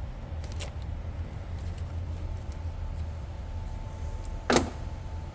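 Light metallic clinks of hand tools being worked on the oil filter cap, with one sharp metallic clank about four and a half seconds in, over a steady low hum.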